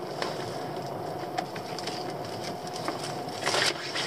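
Spider crabs being handled out of a lobster pot: scattered clicks and knocks of shell and pot, with a louder scrape about three and a half seconds in, over a steady low hum.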